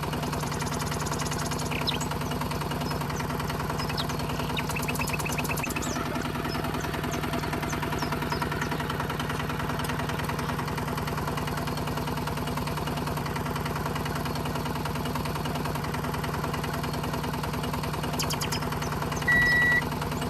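Small electric motor of a DIY mini tractor running steadily with a low, even hum. Two short high beeps sound near the end.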